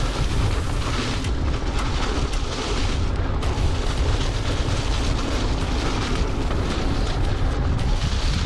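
Steady low rumble of wind buffeting a GoPro's microphone at riding speed, mixed with mountain bike tyres rolling over a leaf-covered dirt trail.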